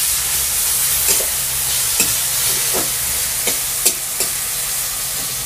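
Food frying in hot oil in an aluminium kadai, a steady sizzle, while a spatula stirs it, scraping and knocking against the pan about half a dozen times.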